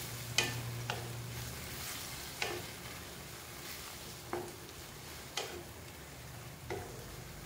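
A spatula stirring chicken and pineapple pieces through a simmering gravy just thickened with cornstarch, in a nonstick frying pan. There is a soft, steady sizzle, with several sharp taps of the spatula against the pan at uneven intervals.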